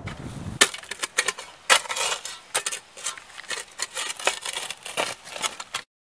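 A metal digging tool striking and scraping stony soil as a pole hole is dug: a quick run of sharp clinks and scrapes that starts about half a second in and stops abruptly just before the end.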